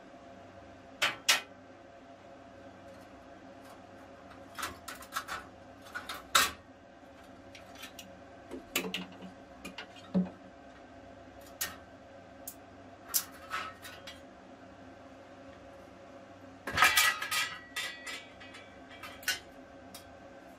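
Plasma-cut steel pieces clinking and clattering against the cut sheet and the steel slats of a CNC plasma table as they are knocked free and lifted out by hand. The knocks come singly and irregularly, with a denser clatter near the end, over a faint steady hum.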